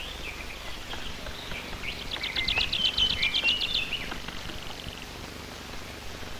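Bird call: a rapid, even run of about fifteen high notes lasting under two seconds, after a few scattered short chirps, with a few faint soft knocks.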